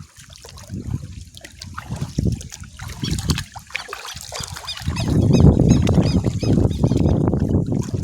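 Water splashing and sloshing as someone wades through a shallow reservoir, getting much louder about five seconds in.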